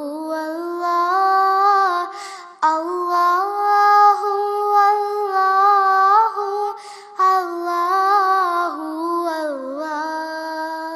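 A high solo voice singing a naat, drawing out long held notes that slide between pitches, with two short breaks for breath, about two and a half and seven seconds in.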